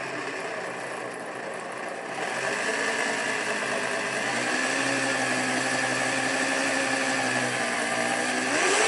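Power drill with a step drill bit running steadily, enlarging a hole in a plastic car bumper; it gets louder about two seconds in.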